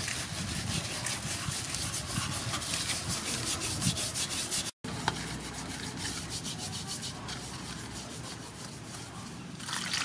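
Hands scrubbing coarse salt over the skin of a whole giant snakehead fish in an aluminium bowl: a gritty, scratchy rubbing in quick, irregular strokes. Near the end, water starts pouring into the bowl.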